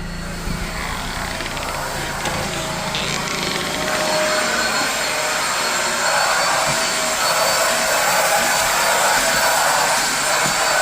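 Vacuum cleaner running steadily, getting louder about four seconds in.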